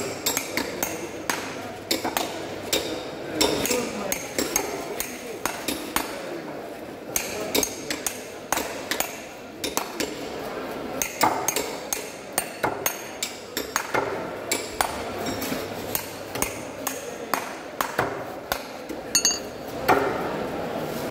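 Large knife chopping a barracuda into steaks, the blade knocking through the fish onto a wooden chopping block in repeated sharp strokes, one or two a second, over background voices.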